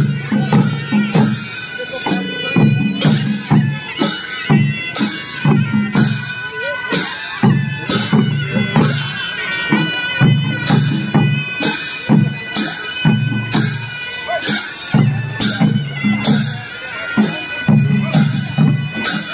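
Newar drum-and-cymbal band accompanying a Lakhe dance: large double-headed barrel drums beat a steady, repeating rhythm while hand cymbals clash and ring over it.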